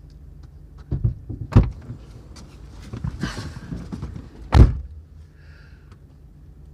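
Knocks and rustling of people settling into a car's seats, then a car door shut with a heavy thunk about four and a half seconds in.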